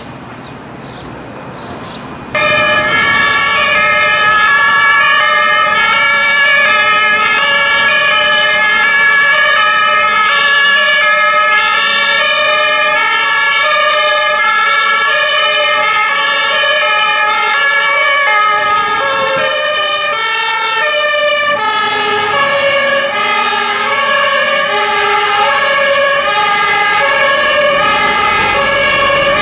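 German two-tone fire engine sirens sounding as the vehicles respond, each switching back and forth between a high and a low note, with more than one siren overlapping. The sirens cut in loudly about two seconds in, after a quieter start.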